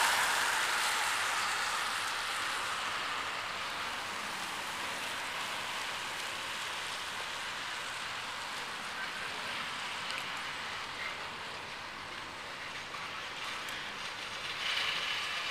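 Steady hiss and rolling noise of a string of railroad tank cars being shoved slowly along the track, loudest at the start and easing off, with a brighter high-pitched edge near the end.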